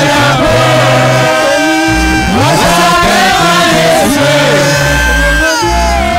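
A group of men and women singing together into microphones, loud through a PA, with low held bass notes underneath.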